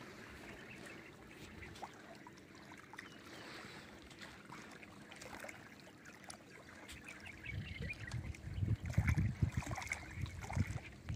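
Small waves lapping faintly at a rocky reservoir shore. From about eight seconds in, irregular low rumbling buffeting hits the microphone and grows louder.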